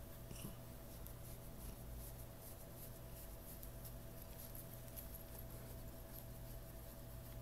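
Faint rubbing and small ticks of fingers scratching a tortoiseshell cat's fur, over a steady low hum.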